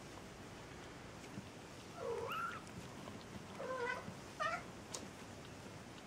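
Young Maine Coon kittens mewing: three short, high mews, the first about two seconds in and the other two close together a second and a half later.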